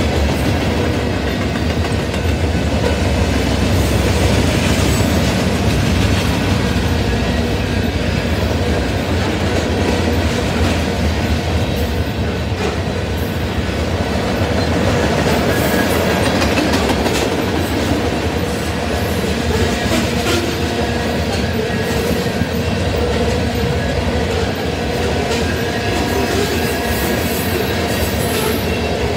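Freight cars of a mixed freight train, tank cars and covered hoppers, rolling steadily past: a continuous deep rumble of steel wheels on the rails, with scattered clicks and clacks as the wheels cross rail joints.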